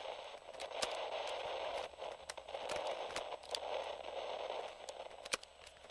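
Faint crackling static: a low hiss that comes and goes in patches, with scattered clicks and a sharper click near the end.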